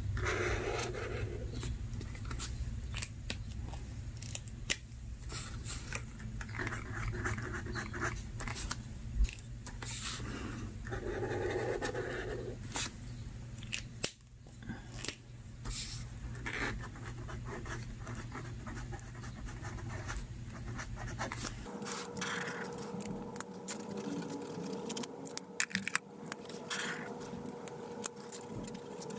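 Passion Planner highlighter markers being swatched and written with on planner paper: chisel-tip and fine-tip strokes scratching and squeaking across the page in short runs of a second or two, with frequent small clicks and taps of the pens.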